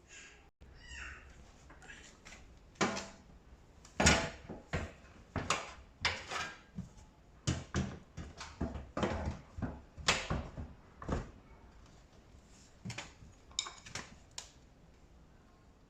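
Irregular knocks and clatters of tumble-dryer panels and parts being handled and fitted during assembly, thickest through the middle with a few more knocks near the end.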